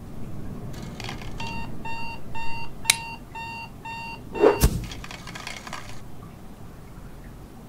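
Digital alarm-clock beeping: about seven short electronic beeps, two a second, with a sharp click among them and a thump just as they stop, over a low rushing noise.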